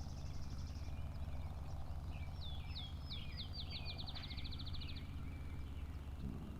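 Wild songbirds singing: a high, rapid trill near the start, then a series of down-slurred whistled notes that speed up into a fast trill in the middle, over a steady low rumble.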